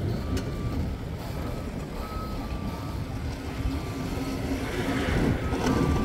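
Forklift's reversing alarm beeping repeatedly over its running engine, the beeps starting about two seconds in.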